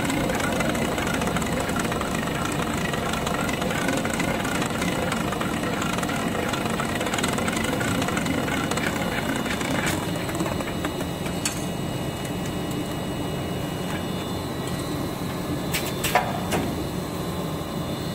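Automatic plastic filament wrapping and packing machine running with a steady mechanical hum and whine, a little quieter from about ten seconds in. A few sharp clicks come in the second half, the loudest about two seconds before the end.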